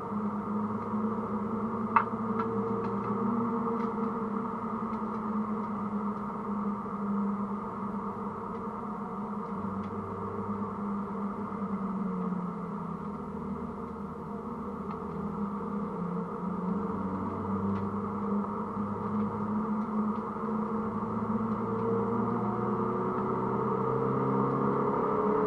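Mini Cooper S (R53) four-cylinder engine driven hard, heard from inside the cabin, its pitch sagging and climbing as the revs change, rising near the end. A single sharp knock about two seconds in.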